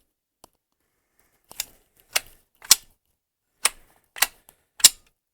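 Six sharp clicks in two groups of three, each about half a second apart.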